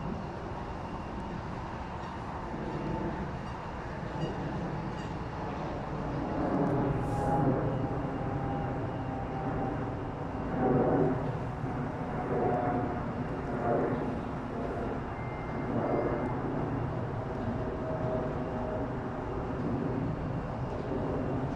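Steady low rumble of distant heavy engines, with a faint engine tone sliding slowly in pitch through the middle and a couple of brief louder surges.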